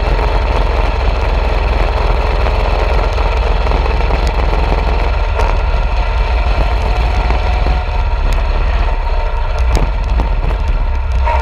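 Coleman mini bike's small engine running steadily while the bike is ridden, heard close up from the handlebars, with a heavy low rumble underneath.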